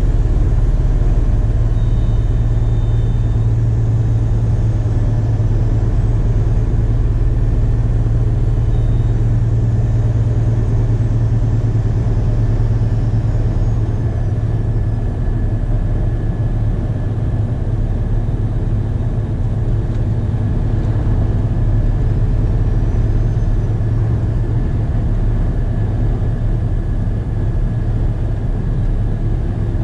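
Scania truck's diesel engine running at a steady cruise, heard from inside the cab: a constant low drone with a little dip in loudness past the middle.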